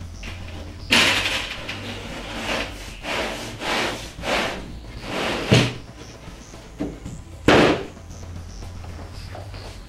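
Wooden divider panels being slid down into the grooves of a cabinet box: a run of scraping rubs of wood on wood with several knocks, the loudest about a second in and again about seven and a half seconds in.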